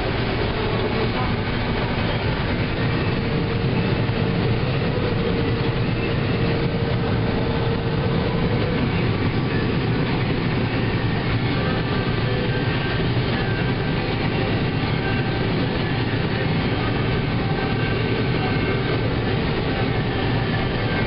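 John Deere combine with a Drago corn head harvesting corn, heard from inside the cab: a steady, unbroken drone of engine, corn head and threshing machinery, with a faint steady whine for the first several seconds.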